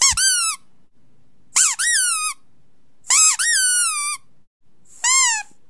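Four short, high-pitched squeaks, about a second and a half apart. Each one swoops up and then down in pitch, and the last is the shortest.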